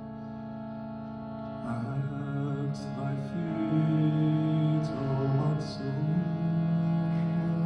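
A devotional song: a steady drone sounds throughout, and about two seconds in a voice begins singing slow, held notes over it.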